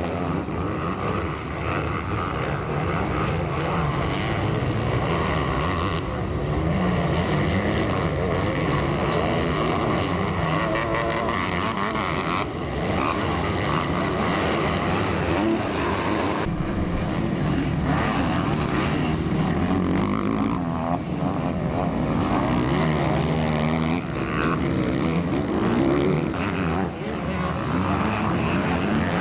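Motocross dirt bike engines revving hard as they race, the pitch repeatedly rising and falling through the gears and throttle changes.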